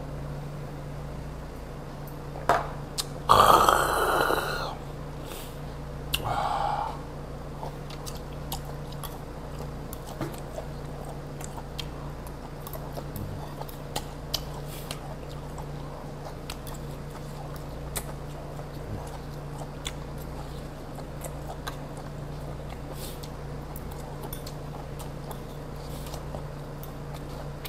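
A loud throaty sound from the man just after a shot of soju, about three seconds in, and a shorter one a few seconds later. Then quiet chewing with light clicks of metal chopsticks on dishes, over a steady low hum.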